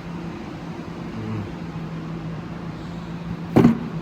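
A steady low hum with one sharp knock about three and a half seconds in.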